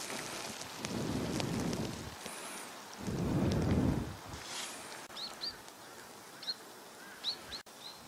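A pot of malatang broth boiling on a portable gas burner, giving a steady bubbling hiss that swells twice. Small birds chirp several times in short, high, falling notes in the second half.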